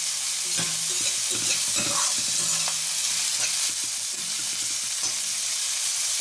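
Diced onion, carrot and green beans sizzling in hot oil in a steel kadai, with a slotted spatula stirring and scraping against the metal pan in repeated short strokes.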